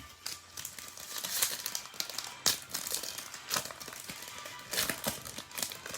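Foil trading-card pack wrapper crinkling in irregular crackles as it is handled, over faint background music.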